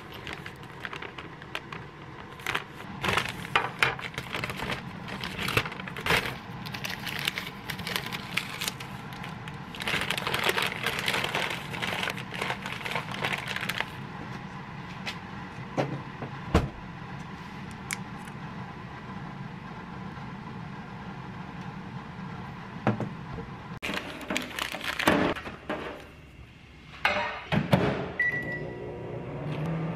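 Paper bakery bag being handled and opened: rustling and crinkling with scattered clicks and knocks. Near the end a microwave oven's keypad gives a short beep as it is set.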